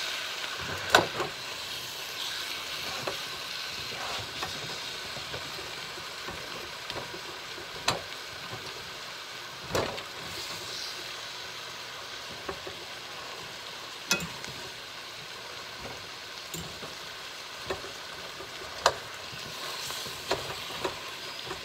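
Chicken pieces browning in a stainless steel skillet, a steady sizzle of frying, with sharp clicks and scrapes of a metal fork and spoon against the pan as the pieces are flipped, about half a dozen times.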